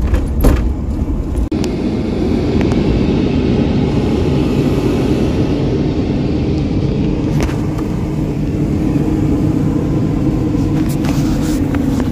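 Taxi van driving on a bumpy, hilly road, heard from inside the cabin: a steady low rumble of engine and road noise, with a few sharp knocks and rattles in the first second.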